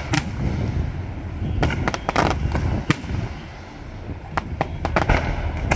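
Fireworks display: sharp bangs and crackles from bursting shells, coming in clusters with one lone crack in between, over a steady low rumble.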